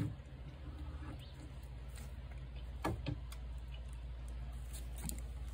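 Cat eating from a plate: a few soft clicks of chewing, about three seconds in and again near the end, over a steady low hum.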